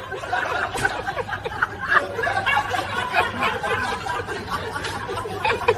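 Several people laughing and chattering at once, overlapping chuckles and snickers with no clear words.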